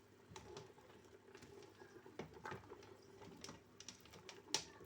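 Chicken feet simmering in a pot of water, with faint, irregular small bubbling pops over a low steady hum.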